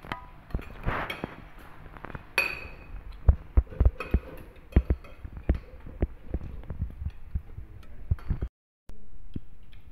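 Metal spoons and forks clinking and scraping against ceramic plates at a meal: many small knocks, with one ringing clink about two and a half seconds in. The sound drops out completely for a moment near the end.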